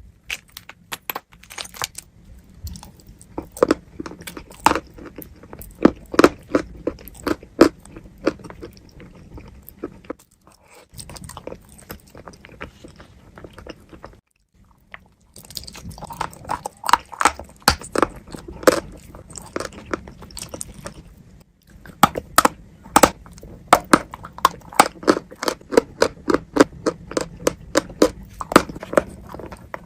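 Close-miked chewing of wet chalk with clay paste: rapid, crackly crunches, bite after bite, broken by a few short pauses.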